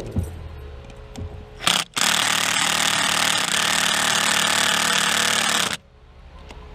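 Cordless drill driving a mounting screw of a GFCI outlet into its electrical box: a short blip, then one steady run of about four seconds that stops abruptly.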